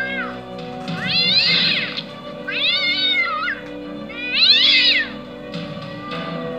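A cat meowing three times, each a drawn-out meow about a second long that rises and falls in pitch, over background music of steady held chords.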